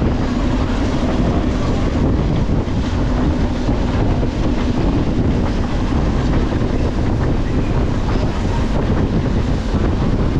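Steady rumble and rattle of a moving train heard from on board: wheels running on the rails with many small clicks, and wind buffeting the microphone.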